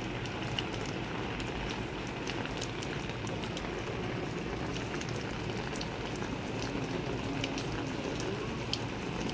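Steady rain, an even hiss dotted with many small ticks of drops hitting surfaces.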